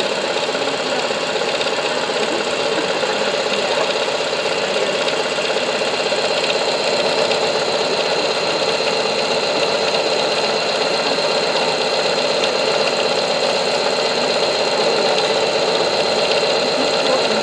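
Singer electric sewing machine running steadily at speed, stitching a monogram pattern with a twin needle; an even whir with a thin high whine over it.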